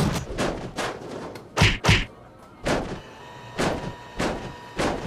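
Foley fight sound effects of punches and blows: a series of about nine separate thuds and whacks at an uneven pace, with the heaviest pair of hits a little over a second and a half in.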